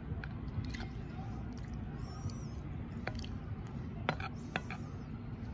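Quiet eating sounds at a meal: a handful of soft clicks over a steady low outdoor rumble, with a faint high chirp about two seconds in.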